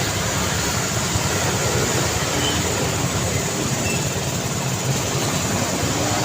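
Steady city traffic noise: a continuous low rumble of vehicle engines and tyres on the road, without a single standout event.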